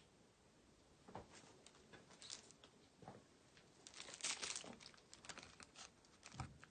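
A hand rummaging through a bin of tangled old eyeglass frames, with faint scattered clicks and rustles that are busiest about four seconds in.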